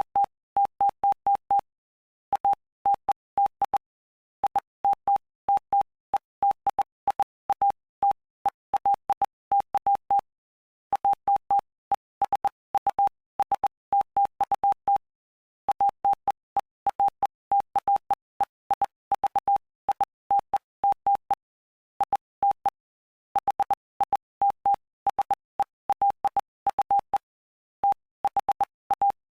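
Morse code: a single steady beep keyed on and off in dots and dashes, with short pauses between words and a faint click as each beep starts and stops, spelling out the text of Mark chapter 5.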